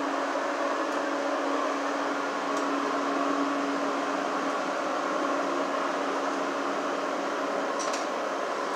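Steady droning hum of a running motor, with a low pitched tone in it that fades out about halfway through. A few faint ticks sound over it.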